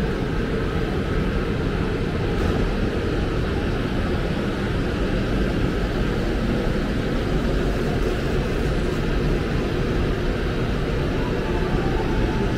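Steady low rumble of a railway station platform under a large train shed, with a passenger train standing alongside.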